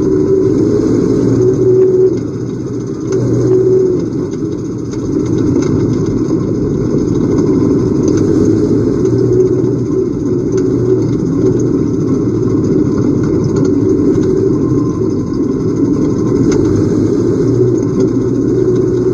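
Pure Stock dirt-track race cars' engines running hard at racing speed, a steady loud drone that dips briefly about two seconds in, then picks back up.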